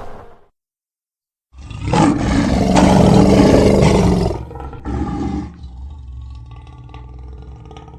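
Designed Allosaurus roar sound effect, layered from animal recordings such as elk, elephant and lion: a long loud roar begins about a second and a half in, a short second burst follows, then a quieter, lower growl trails off near the end.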